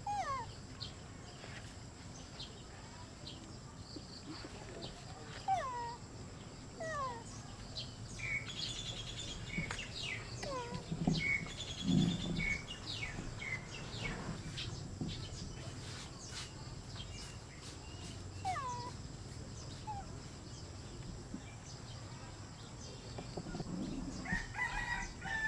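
Short, high animal calls scattered through the stretch, many of them chirps sliding down in pitch, with a few low thumps about halfway through and a faint steady high tone underneath.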